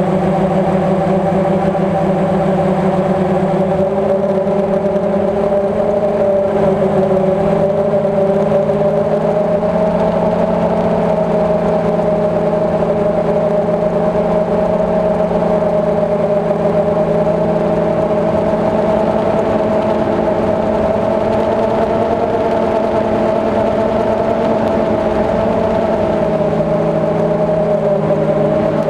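DJI Phantom quadcopter's four motors and propellers buzzing steadily in flight, heard through the camera mounted on the drone; the pitch wavers slightly as the motors adjust their speed.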